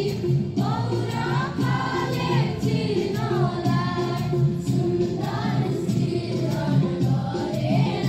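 Many voices singing a song together in unison, with a steady low accompaniment beneath the tune.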